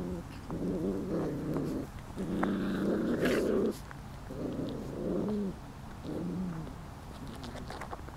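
Almost five-week-old doodle puppies growling as they play-wrestle: four low, rumbling growls, the one in the middle longest and loudest.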